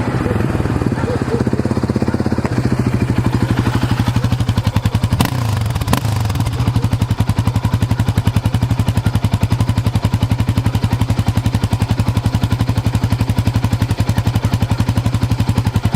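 Yamaha Raptor 700's single-cylinder four-stroke engine through a LeoVince exhaust, idling with a loud, even pulsing beat. About five seconds in come two sharp pops from the exhaust with a brief rise and fall in engine speed, then it settles back to the steady idle.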